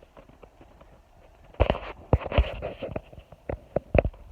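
A run of sharp, irregular knocks, about seven hard hits starting about a second and a half in: a green jelly coconut being struck.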